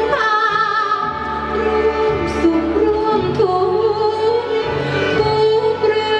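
Thai traditional dance music: a singing voice holding long notes that slide and waver, over instrumental accompaniment. A falling glide opens it.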